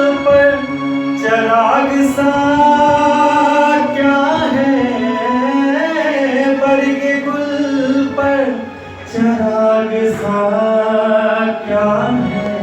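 A voice singing long, held, wavering notes over musical accompaniment, with a brief break about nine seconds in.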